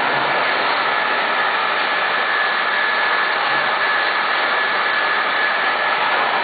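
Electric centrifugal exhaust blower on a UV curing machine running: a steady rush of air with a thin, constant high whine.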